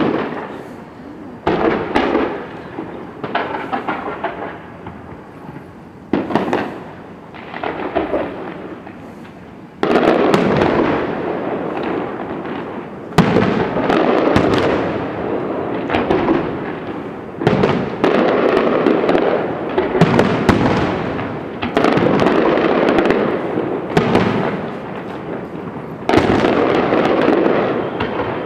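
Aerial fireworks bursting: separate booms a second or two apart, then, about ten seconds in, a dense barrage of overlapping bangs and crackle.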